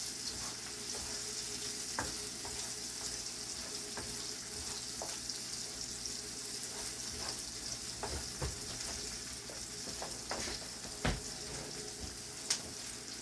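Food frying in hot oil, a steady sizzling hiss, with a few short clicks and knocks scattered through it.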